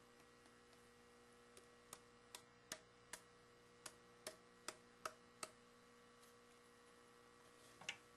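Faint light taps of fingers on a homemade PVC blimp windscreen housing, about ten of them at two or three a second, testing how well its rubber-band shock mount isolates the microphone. A steady faint electrical hum runs underneath.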